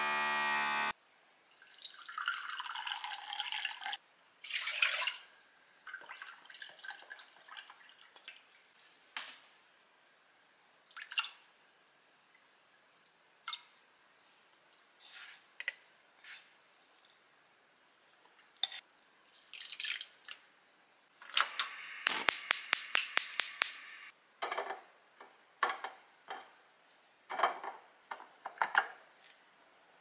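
Kitchen food-prep sounds: liquid being poured, then scattered clinks and taps of utensils and clear plastic storage containers. A little past the middle there is a quick run of about ten evenly spaced ticks.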